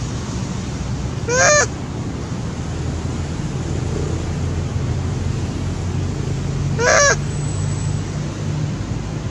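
Macaque giving two short, loud, honking calls about five and a half seconds apart, each wavering in pitch, over steady low background noise.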